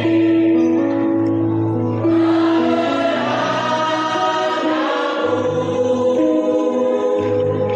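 School choir of girls and boys singing together in harmony, holding long notes that move from chord to chord.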